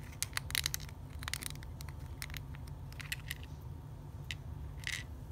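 Small plastic Lego plates clicking and tapping as fingers press them together on a Lego baseplate. A quick run of clicks comes in the first second and a half, then scattered single clicks follow, over a low steady hum.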